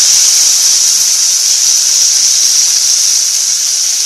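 Chopped tomato sizzling in hot mustard oil in a frying pan: a loud, steady hiss that slowly dies down as the tomato's juice cooks off.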